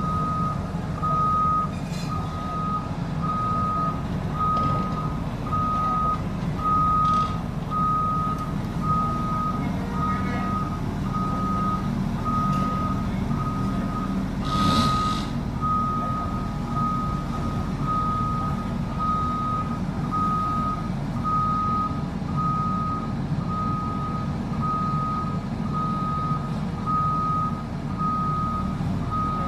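Shantui bulldozer's reversing alarm beeping steadily, about one beep a second, over the low, steady running of its diesel engine. A brief hiss comes about halfway through.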